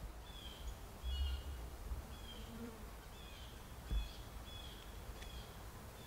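Faint outdoor wildlife chirping: a short, high chirp repeated a bit more than once a second, with a few low rumbles underneath, the strongest about four seconds in.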